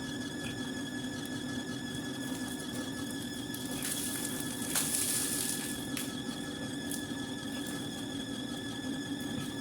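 A steady high-pitched machine whine, with a burst of hissing about four to six seconds in.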